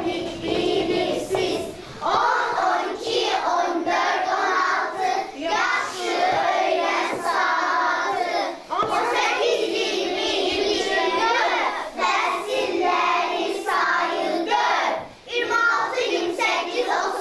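A class of young children singing together in unison, in phrases broken by short pauses.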